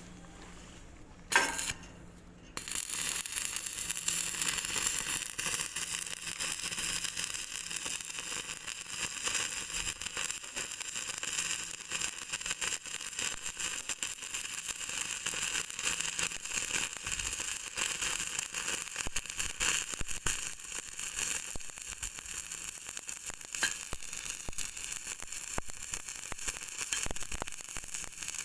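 Electric welding arc running on a joint: a steady hiss full of fine crackles that starts about two and a half seconds in, after a single sharp click.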